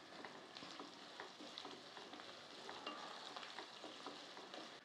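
Sliced small red onions and garlic frying faintly in sesame oil over low heat, a soft sizzle with scattered small crackles, as a wooden spatula stirs them around the pan.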